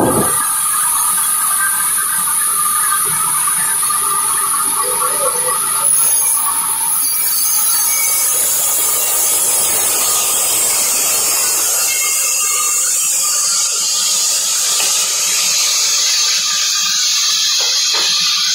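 Sawmill band saw running steadily: a loud, high hiss over a steady whine.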